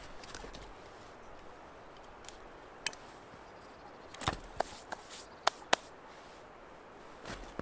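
Knife carving a stick of resinous fatwood: a few sharp clicks and snaps of the blade biting the wood, most of them bunched together in the middle, the loudest two in quick succession.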